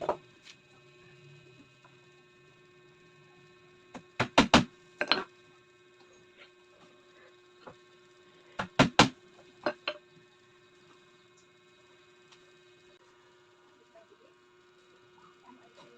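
Sharp knocks of carpentry work in two quick clusters of about four strikes each, roughly four seconds apart, with a single knock at the start, over a faint steady hum.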